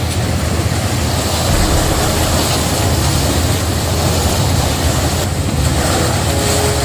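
Seawater surging and foaming against the steel side of a loaded coal barge: a loud, steady rushing with a deep rumble underneath.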